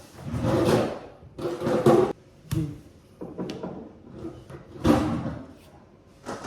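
Kitchen handling sounds: a series of short knocks and scraping rustles from things being moved and set down, with a sharp click about two and a half seconds in.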